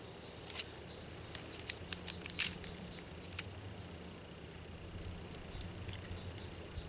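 Small wood campfire crackling: a run of sharp, irregular pops and snaps in the first few seconds, then only a few scattered ones.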